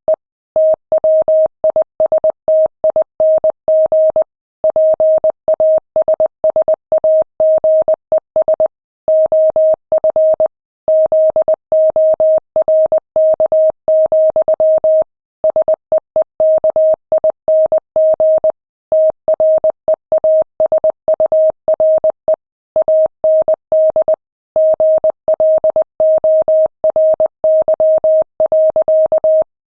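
Morse code sent at 20 words per minute: a single steady mid-pitched beep keyed on and off in short dots and longer dashes, with slightly longer pauses between words.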